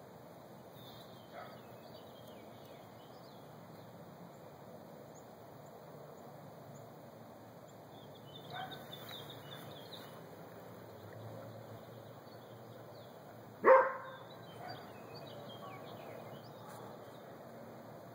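A dog barks once, loudly, about three-quarters of the way through, over a quiet backyard background with small birds chirping faintly.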